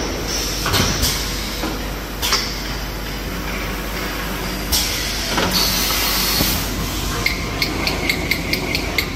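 Toilet paper and kitchen towel rewinding machine running steadily, with short hisses now and then. Near the end comes a quick run of sharp clicks, about five a second.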